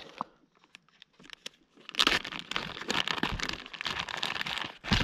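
Clear plastic zip-top bag being pulled open and handled, crinkling. The handling starts faintly with a few ticks, turns to dense crackling from about two seconds in, and a sharp loud crackle comes near the end.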